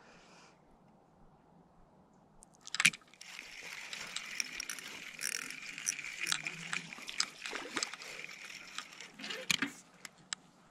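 A sharp click about three seconds in, then a hooked bluegill splashing at the surface of shallow water for about six seconds as it is reeled in to the bank.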